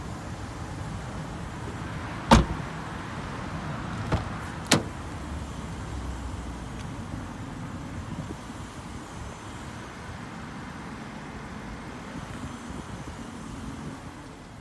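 A Nissan hatchback's door shuts with one loud thud about two seconds in, followed a couple of seconds later by two sharper clicks of door latch hardware. Under it all is the low steady rumble of the car's engine idling.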